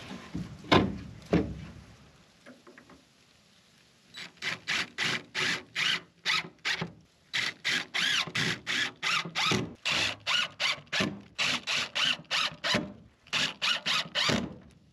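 A couple of knocks as the wooden door is pushed into its frame. Then a DeWalt cordless drill drives screws through a steel T-hinge into wood in a long run of short pulses, about three a second.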